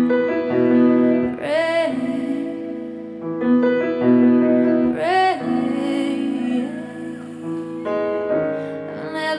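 A song playing: a woman singing held, wavering notes over a piano accompaniment.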